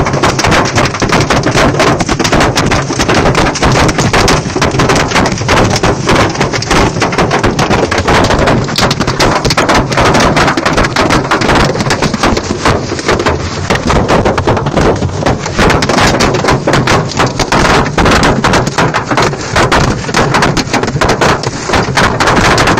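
Hailstones hammering on a car's roof and windscreen, heard from inside the cabin: a loud, dense, unbroken clatter of hard impacts. The hail is heavy enough to batter and damage the car.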